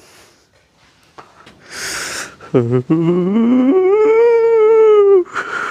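A drawn-out wailing cry. After a short breathy hiss, a low note slides up in pitch and is held as a high, slightly wavering wail for about two seconds before cutting off.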